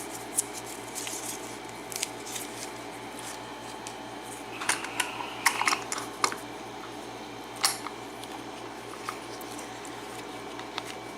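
Small metal clicks and clinks from handling a pin-tumbler padlock and its key: a quick cluster of sharp taps in the middle, then one more click, over a steady low hum.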